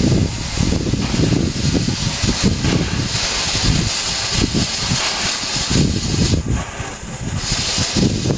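SMC1 'Coffee Pot' steam railmotor pulling away on departure: uneven low pulsing under a steady steam hiss, with the hiss strongest partway through.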